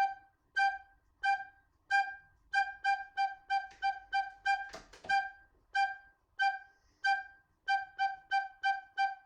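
Recorder playing the single note G over and over in short, softly tongued notes, about two dozen in a simple song rhythm that quickens after the first few notes. A single brief knock comes near the middle.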